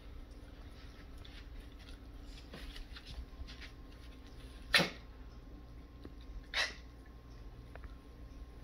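Boxer puppy and a long-haired small dog play-wrestling: two short, sharp dog noises about two seconds apart past the middle, over faint scuffling and paw taps.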